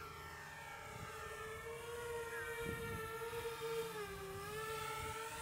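A multirotor FPV drone carrying a Mavic 3 on its back, in flight: a steady propeller and motor whine that dips in pitch briefly about four seconds in, then comes back up.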